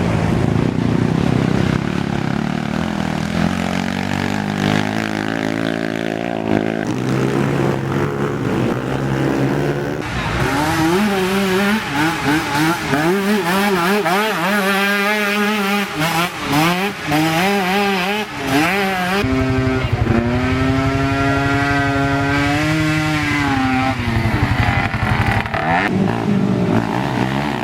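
Racing ATV engines revving hard, their pitch climbing and dropping repeatedly through throttle changes and shifts. From about ten seconds in, one quad is loud and close, holding a steady high pitch for a few seconds before falling off.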